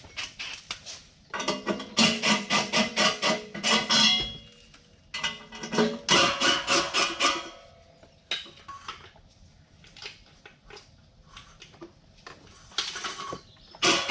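Impact wrench hammering lug nuts loose on a truck's front wheel, in several bursts of rapid rattling blows, the longest about two seconds each.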